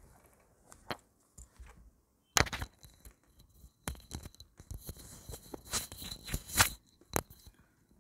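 Close handling noise: rustling, scraping and clicking in irregular spells, first about two and a half seconds in and then from about four to seven seconds in, over a faint steady high whine.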